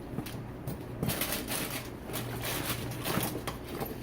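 Rustling and crinkling of items being handled and pulled out of a canvas tool bag, in quick clusters, thickest from about a second in until near the end.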